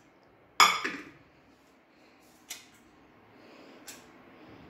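An aluminium gas tandoor (baati maker) set down on a gas stove's burner: one sharp metal clank about half a second in, ringing briefly, then two faint light knocks as it settles.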